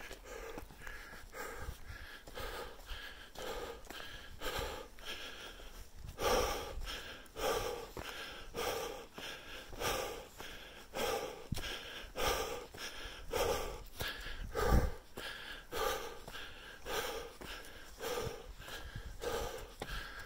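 A hiker's heavy, rhythmic breathing while climbing, about two breaths a second, mixed with footsteps on a dirt trail covered in dry leaves. A single low thud comes about three-quarters of the way through.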